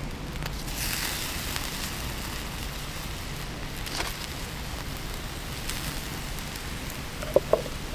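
Wood fire crackling under a grill grate while a chicken fillet sizzles on it, with scattered sharp pops and a brighter hiss about a second in as the meat is laid back down. Two brief, louder sounds come near the end.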